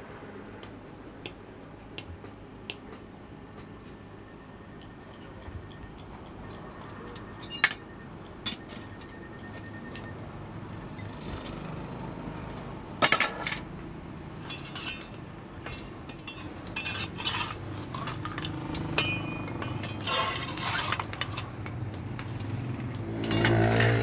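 Metal tools and iron pieces clinking and knocking together as they are handled: scattered light clinks, one sharper knock about halfway through, then a busier run of clinks a few seconds later.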